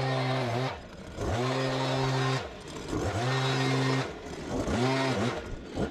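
Handheld petrol leaf blower with its throttle worked on and off. The engine runs at high revs, drops back and revs up again about five times, more quickly toward the end.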